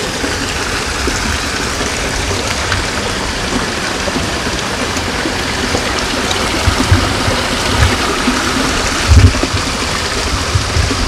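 Koi pond waterfall running steadily, water splashing and trickling over the rocks into the pond. A few low thumps come in the second half.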